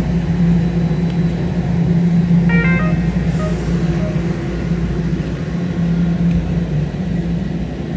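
TTC subway train humming steadily with a low rumble at the station platform. A short pitched sound comes about two and a half seconds in.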